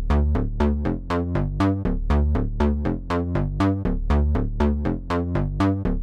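Electronic music: a repeating synthesizer pattern of short notes, about four a second, over a steady bass line.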